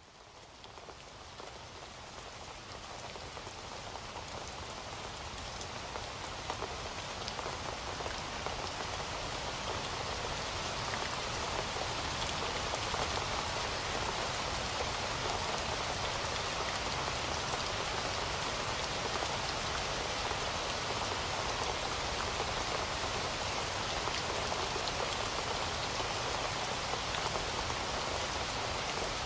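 Steady heavy rain falling on a surface, with the patter of individual drops, fading in over the first several seconds and then holding steady.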